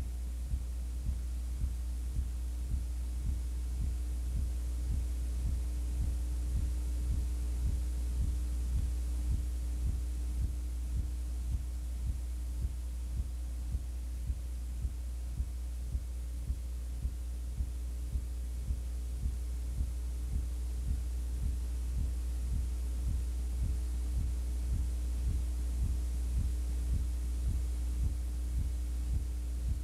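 Low electrical hum with a steady tone above it and a regular throbbing pulse about one and a half times a second: noise on the audio track of an old videotape transfer. No crowd or game sound comes through.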